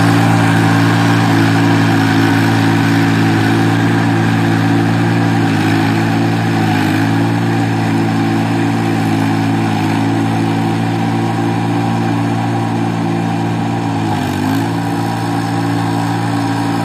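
VST Shakti mini tractor's diesel engine running steadily while pulling a rotavator through flooded paddy mud, its pitch dipping briefly about six seconds in and again near fourteen seconds. It grows slightly fainter as the tractor moves away.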